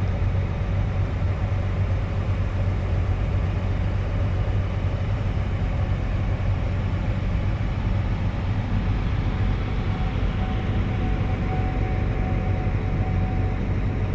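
Farm tractor's diesel engine running steadily while driving across a field, heard from inside the cab as a constant low drone. A faint steady whine joins it about two-thirds of the way in.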